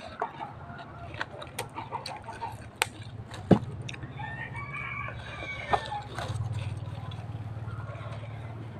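A rooster crowing once, around the middle, over close-up eating sounds: scattered sharp clicks and smacks of chewing. A steady low hum runs underneath.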